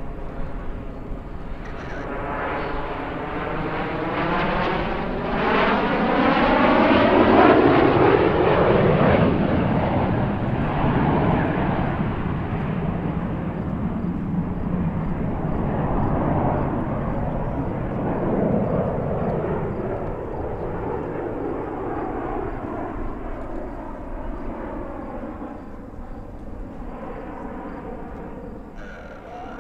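Canadian Forces Snowbirds CT-114 Tutor jets with J85 turbojet engines making a pass, their jet noise swelling to its loudest about a quarter of the way in and then slowly fading, the tone sweeping as they go by.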